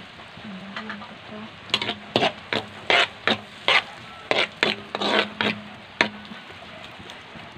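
Sliced garlic and red onion sizzling in butter in a black pan, with a spatula scraping and knocking against the pan a dozen or so times as they are stirred, mostly between about two and six seconds in.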